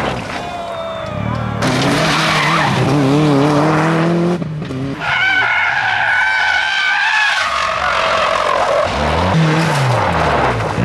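Rally cars at full attack in quick succession, their engines revving hard and rising in pitch, with loose gravel spraying. Midway comes a long tyre squeal lasting a few seconds from a car sliding on tarmac, then another engine revving up and down.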